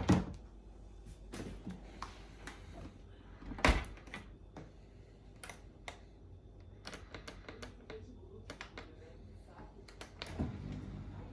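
Knocks and clicks of dishes and dishwasher racks being handled, with a loud thud at the very start and another about four seconds in, and scattered lighter clicks between.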